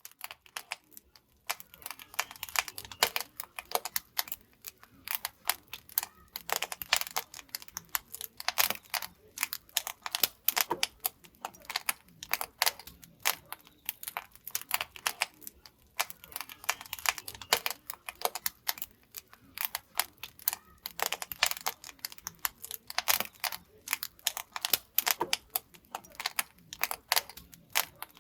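Wood fire crackling in the firebox of a traditional wood-fired pottery kiln: a dense, irregular run of sharp snaps and pops, coming in thicker clusters every few seconds.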